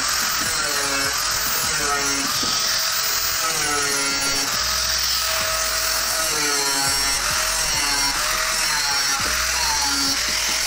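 Hand-held angle grinder running steadily as it cuts into a sheet-steel electrical panel enclosure, with background music and a melody playing over it.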